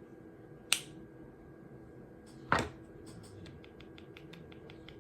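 Small 3D-printed plastic parts being handled and pressed together: two sharp clicks, under a second in and about two and a half seconds in, then a string of faint quick ticks.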